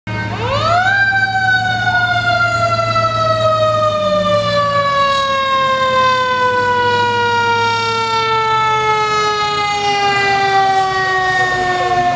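Fire engine's mechanical siren, a Federal Q, winding up steeply to its top pitch within about a second, then coasting down in one long, slowly falling wail. Under it runs the low rumble of the truck's engine, which fades about eight seconds in.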